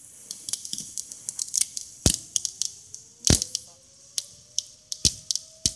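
Ground fountain firework crackling: a stream of irregular sharp pops and cracks, a few louder than the rest, over a low hiss. A faint thin whistle rises slowly in pitch through the second half.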